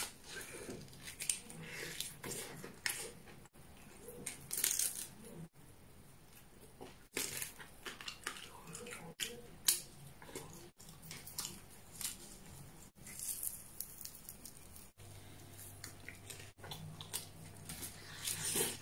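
Close-miked eating: biting into and chewing herb-crusted meat on the bone and roast potato, with irregular crunchy, crackly bites and wet chewing, a few bites louder than the rest.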